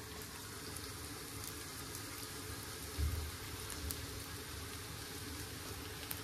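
Buttered rice pilaf sizzling in a pot on the stove: a steady crackling hiss, with a soft low knock about three seconds in.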